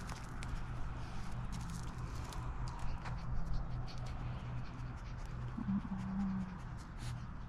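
A vizsla searching on wet ground: scattered light scuffs and ticks from its movement, over a steady low hum.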